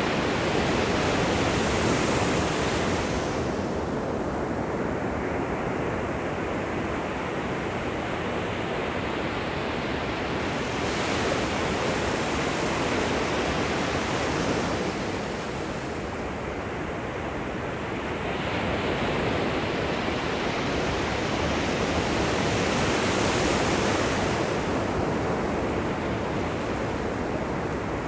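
Gentle surf at the shoreline: small waves breaking and washing up the beach in a steady rush that swells and eases every several seconds.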